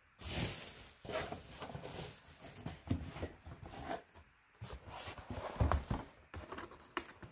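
Packaging being handled: scattered rustles and light knocks, then a cardboard mailer set down on a table with a soft thump near the end, and hands sliding over it.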